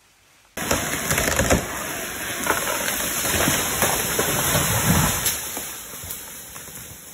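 Large tree crashing down through the forest: a dense crackle of snapping branches and rushing foliage with heavy thuds, starting abruptly about half a second in and dying away near the end.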